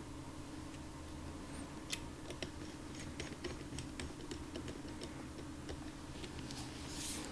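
Scattered light clicks and ticks of small laptop parts and connectors being handled, over a steady low hum.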